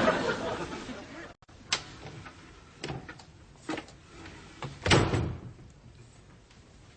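Studio audience laughter dying away, then a few scattered knocks and a heavier thump about five seconds in.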